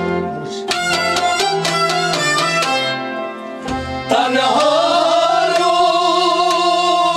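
Kashmiri sufi folk music played live on harmonium and bowed strings, with quick hand-percussion strokes. About four seconds in, the percussion gives way to a long held note that wavers in pitch.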